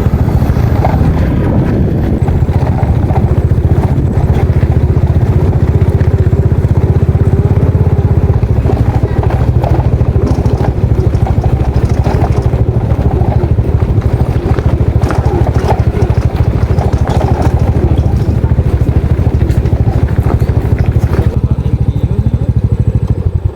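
Small motorcycle engine running steadily under way, loud and close, then cutting off suddenly at the end.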